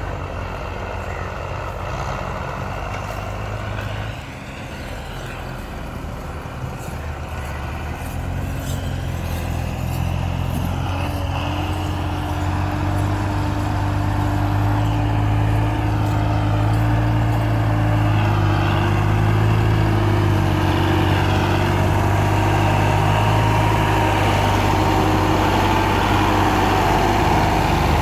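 Belarus diesel tractor engine running hard under load while pulling a heavily loaded sugarcane trolley up a ramp. The drone is steady and grows louder from about a third of the way in.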